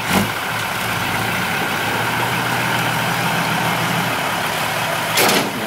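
Diesel engine of a six-wheel dump truck running steadily as the truck creeps forward with its bed raised, tipping soil; the engine note changes about four seconds in. A brief loud noise comes near the end.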